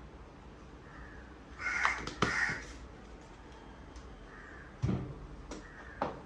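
Crows cawing repeatedly, loudest about two seconds in, with a few sharp clinks of a spoon against a steel bowl around five and six seconds in.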